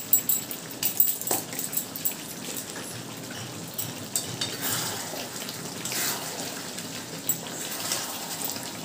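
Chicken curry simmering in a kadai, bubbling and spitting steadily. In the first second, dried fenugreek leaves (kasuri methi) crackle as they are crushed between the palms over the pan, and near the end a wooden spatula stirs the thick gravy.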